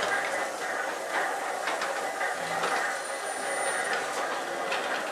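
Steam engine running: a steady mechanical clatter and hiss with occasional sharp clicks from its moving gear, and a faint high whistle for about a second around three seconds in.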